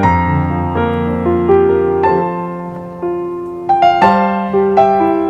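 Background music: gentle piano notes struck one after another, each dying away, with a few notes struck together about four seconds in.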